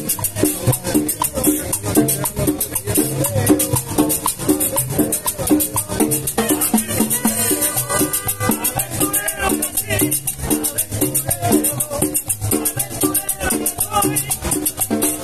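Live Latin dance music from a street band: congas and upright bass under a fast, even shaker-like percussion rhythm.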